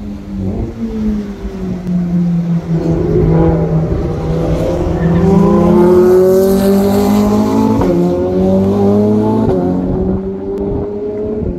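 Ferrari supercar engine accelerating hard along the track, its revs climbing and loudest midway, then dropping twice at quick upshifts near the end. A steadier, lower engine note runs underneath.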